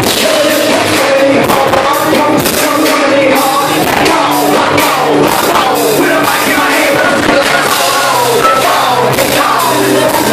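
Live rap-rock band playing loud: distorted electric guitar and a drum kit under rapped, shouted vocals through the club PA.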